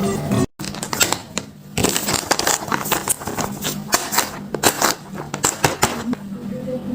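Handmade paper blind bag being unpacked: paper crinkling and rustling, with many quick sharp clicks and crackles as it is handled and torn open. It starts after a brief dropout about half a second in.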